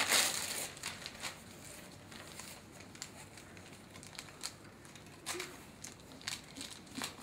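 Wrapping paper crinkling as a present is unwrapped: a dense rustle at the start, then scattered small crackles and clicks.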